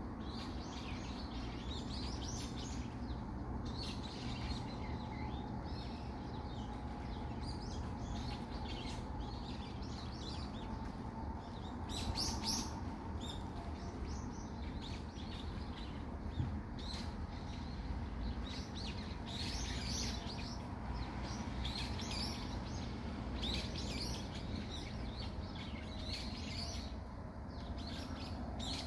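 Small birds chirping and tweeting in trees, with many short calls in quick succession, over a steady low rumble of city background noise.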